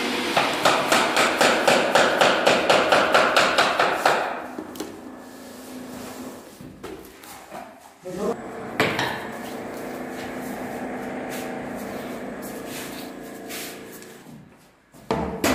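A quick, even run of sharp knocks, about four a second, for the first four seconds. Then a quieter steady hum, with a couple of single knocks about eight seconds in and another near the end.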